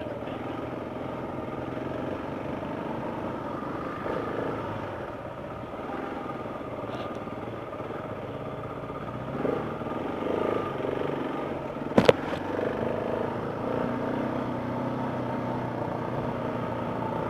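Dirt bike engine running under way, the throttle opening up a few times past the middle. A sharp knock about twelve seconds in is the loudest sound.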